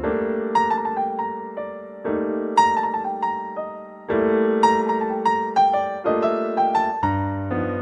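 Slow, calm piano music: a chord struck about every two seconds, with single melody notes above it.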